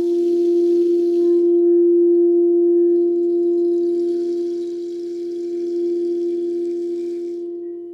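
Singing bowl ringing with one steady sustained tone and fainter higher overtones, fading near the end. A soft high hiss sits over it, dying away about a second and a half in and returning about three seconds in until shortly before the end.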